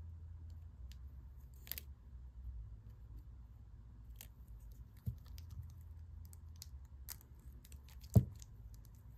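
Small items handled on a tabletop: scattered light clicks and rustles, with one louder knock near the end.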